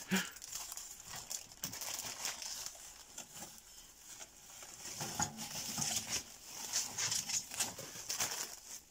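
Plastic bags and bubble wrap crinkling and rustling as they are pulled out of a washing machine drum and handled, irregular and busier in the second half.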